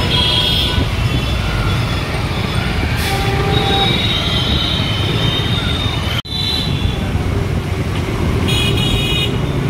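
Street traffic in a heavy jam heard from a moving scooter: a steady rumble of engines and road noise, with vehicle horns honking several times in short toots. The sound drops out for an instant about six seconds in.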